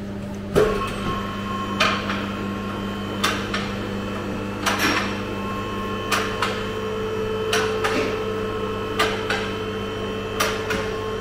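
A hammer striking metal at an unhurried, even pace, about one blow every second and a half, each blow ringing briefly. A steady low hum runs underneath.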